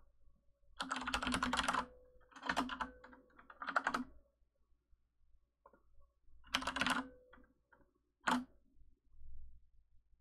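Computer keyboard typing in about five short bursts of rapid keystrokes, the longest lasting about a second, with pauses between them.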